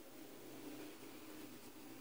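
Near silence: faint room tone with a faint low hum.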